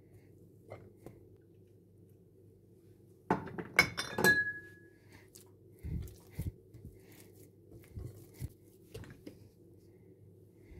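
Glass mixing bowl clinking and knocking as dough is kneaded in it: a quick cluster of sharp clinks a little over three seconds in, one left ringing briefly, then a few softer, duller knocks.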